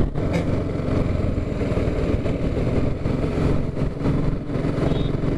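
A BMW G 310 R's single-cylinder engine running steadily at cruising speed, heard together with road noise from the bike-mounted camera's microphone.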